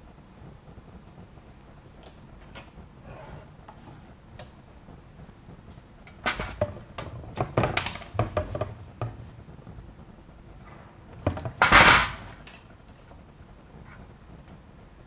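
A few light tool clicks, then a run of sharp clattering knocks about six to nine seconds in and a louder scraping clatter near twelve seconds: a hobby knife and a thin build sheet being handled on a wooden workbench while a 3D print is cleaned up.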